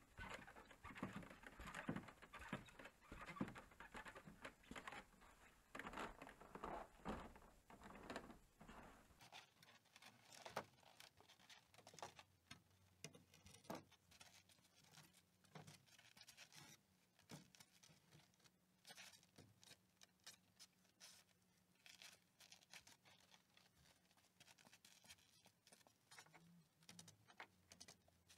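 Near silence with faint, irregular taps and scrapes, denser in the first nine seconds: footsteps on a wooden ladder and timber rafters.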